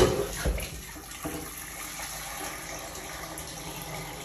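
Water running steadily from a kitchen tap, after a sharp knock right at the start.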